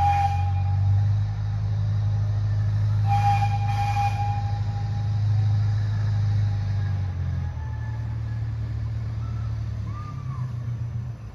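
Narrow-gauge C.P. Huntington-style zoo train locomotive giving one horn blast about three seconds in, just after another blast ends at the start, over a steady low engine rumble that drops about seven and a half seconds in as the train moves away.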